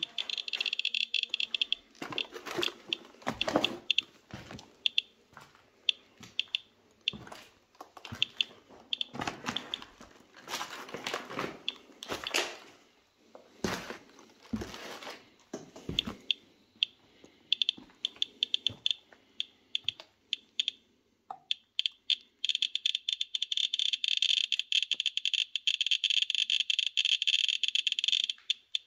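Radiation Alert Inspector Geiger counter chirping at a rising rate. From about three-quarters of the way through, the chirps run together into an almost continuous buzz as it is held against old sample bottles, a sign of elevated radiation, about 5 µSv/h on its display. Footsteps crunch on debris in the first half.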